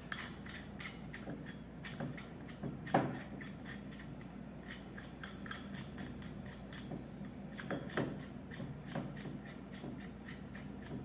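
A steel nut being threaded by hand down a half-inch bolt: irregular small metal clicks and scrapes, with a sharper knock about three seconds in.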